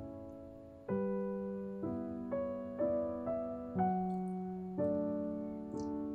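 Background music: a slow piano piece, its notes and chords struck about once a second and each left to ring and fade.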